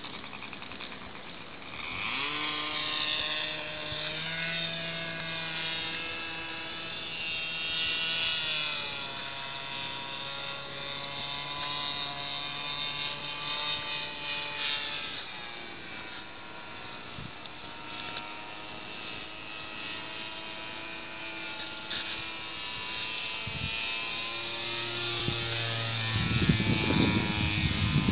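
Radio-controlled model aircraft's motor and propeller running overhead, the pitch slowly rising and falling with throttle and distance. Low rumbling gusts come in near the end.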